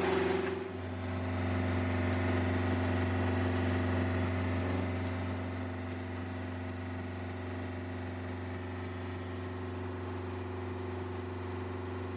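A sailboat's inboard engine running steadily under way, a constant low drone with an even hiss above it.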